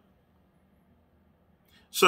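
Near silence: room tone in a pause between a man's sentences. Near the end comes a short, soft breath-like noise, and then his next word starts.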